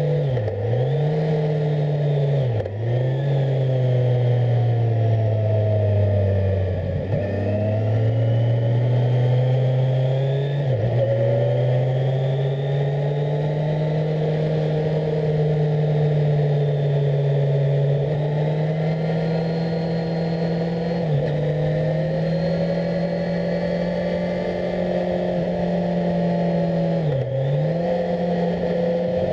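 2018 Kawasaki Z1000SX's inline-four engine running under way, heard on board, its pitch rising and falling with the throttle. The pitch dips sharply and recovers several times, and drops lower for longer about seven seconds in before building back up.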